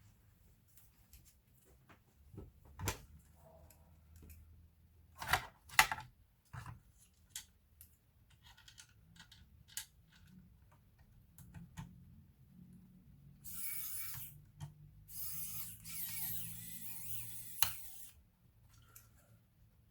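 Hands working on a laptop: scattered small clicks and taps of plastic and metal parts, with two louder clicks about five and six seconds in. Several seconds of hissing, scrape-like noise follow in the second half, ending with a click.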